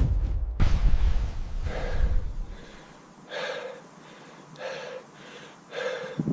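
A person breathing out in short, voiced huffs, four of them about a second apart, after a low rumble in the first couple of seconds.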